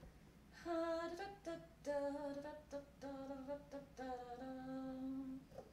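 A woman humming a short tune to herself: a string of held, steady notes starting about half a second in and stopping just before the end.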